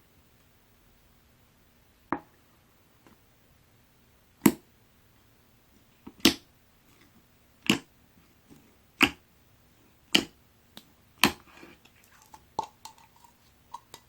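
Pink clear slime being pressed and stretched by hand, giving sharp, short pops as air pockets burst: about seven loud pops, one every second or so, starting about two seconds in, then a few smaller crackles near the end.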